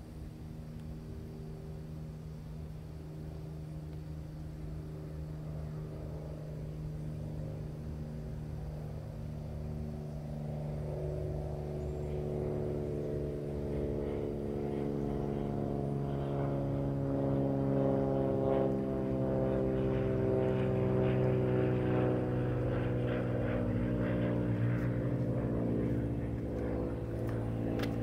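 A steady engine drone that grows louder through most of the stretch, its pitch slowly falling, then eases slightly near the end.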